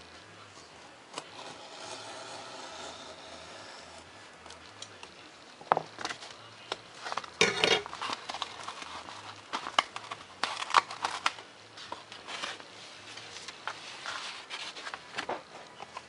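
A hobby knife drawn along a ruler, scoring a line about halfway through foam board in one steady scratch. Then the cut foam-board pieces are pulled free and handled, with irregular clicks, knocks and paper rustles and one louder crackle about seven seconds in.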